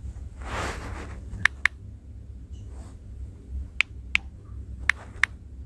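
Six short, sharp taps in three pairs from digits being keyed on a phone's on-screen number keypad, over a steady low hum.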